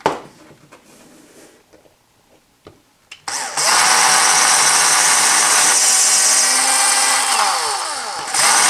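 Single-speed electric drill starting up about three seconds in and running at full speed as it drills a hole into a wooden block. Near the end it briefly winds down, falling in pitch, then starts up again.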